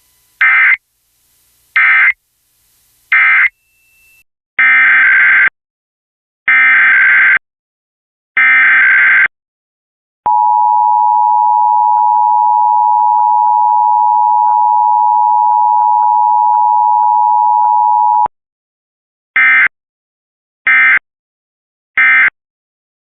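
Emergency Alert System tones. Three short SAME digital data bursts mark the end of message. Three longer SAME header bursts follow, then an eight-second two-tone EAS attention signal (853 and 960 Hz together, held steady), and finally three more short end-of-message bursts.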